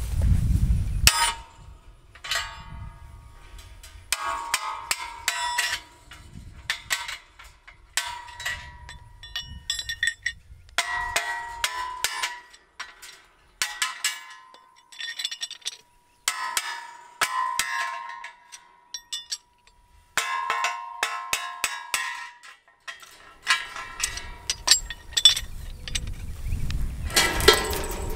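Steel wedges being tapped out of a steel fence stretcher bar with fencing pliers: repeated bursts of metal-on-metal taps and clinks, the steel ringing after many of the strikes.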